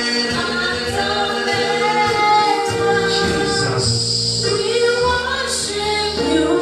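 Church congregation singing a gospel song together, mostly women's voices, over steady held low notes.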